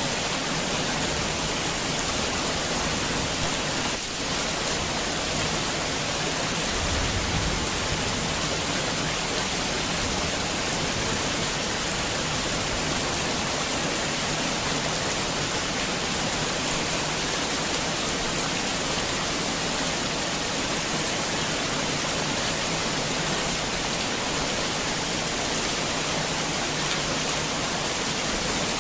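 Heavy, steady rain pouring down, with a brief low rumble about seven seconds in.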